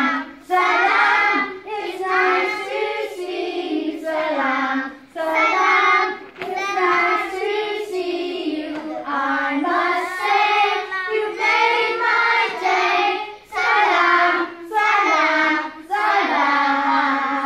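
A class of young children singing together in unison, a song in short phrases of a second or two with brief breaks between them.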